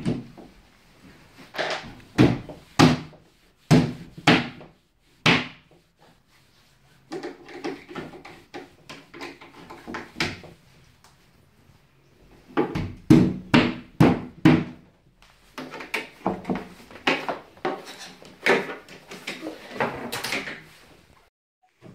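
Repeated knocks and thumps of wooden bed-frame panels being handled and knocked into place during assembly. They come in irregular clusters separated by short pauses.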